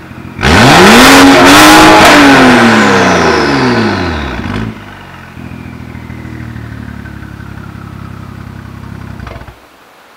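BMW F10 535i's turbocharged 3.0-litre inline-six through a Fi Exhaust valved cat-back with the exhaust valves open. About half a second in there is one sharp blip of the throttle: the revs climb for about a second and fall back over the next three seconds. The engine then settles into a steady idle that drops away abruptly near the end.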